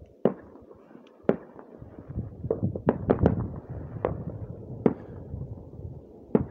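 Fireworks going off: about nine sharp bangs at irregular intervals, several in quick succession about three seconds in, over a low steady rumble.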